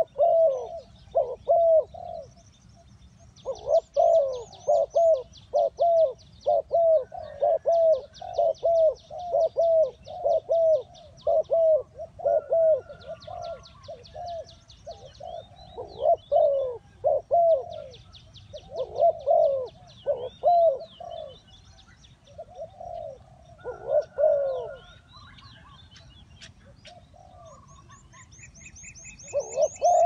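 Spotted dove cooing in repeated runs of short, downward-bending coos, with a few seconds' pause near the end. Fast, high-pitched chirping trills come and go above the coos.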